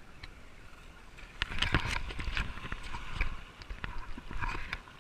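Handling noise from a waterproof action camera's housing: irregular knocks and scrapes as it is gripped and brought down to the sand, from about a second and a half in until near the end, over a steady wash of wind and shoreline water.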